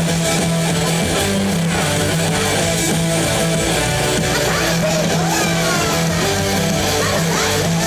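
A live band playing loud rock music with guitar to the fore, a few notes sliding in pitch about five seconds in and near the end.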